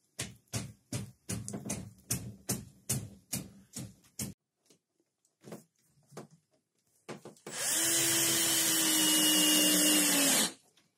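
A run of about a dozen sharp knocks, then a cordless drill runs for about three seconds into a wooden batten. Its steady motor whine dips slightly just before it stops.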